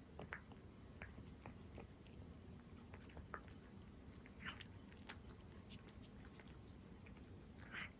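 Cat eating Felix chicken-in-jelly wet cat food: faint, irregular wet clicks and smacks of chewing, with two slightly louder smacks about halfway and near the end.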